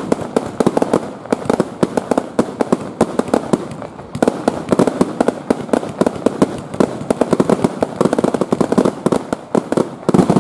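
Fireworks display exploding in a rapid, unbroken barrage of bangs, several a second, near the end of the show, with a brief lull about four seconds in.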